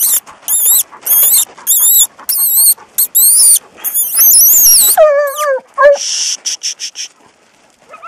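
Coyote yipping and howling: a rapid string of high, wavering yelps, then a lower howl that falls in pitch about five seconds in, and a few short raspy barks just after. It is the coyote raising a racket at the hounds.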